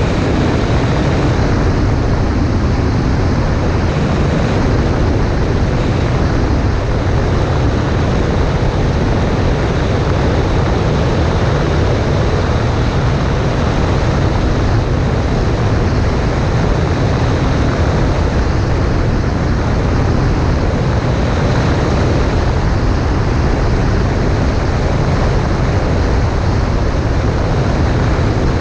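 Cessna 140A in flight: a steady drone of engine and propeller, mixed with the rush of wind.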